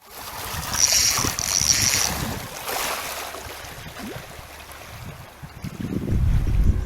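Sea water splashing and sloshing against a kayak, with wind buffeting the microphone as a low rumble that grows loudest near the end.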